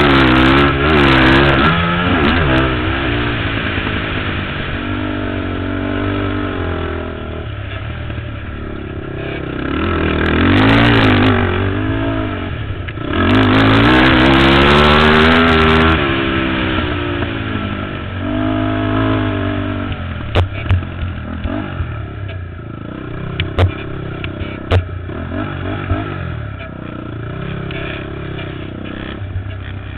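ATV engine revving up and down as the quad is ridden on a dirt track, with repeated surges of acceleration, the longest and loudest about halfway through. A few sharp clicks are heard in the second half.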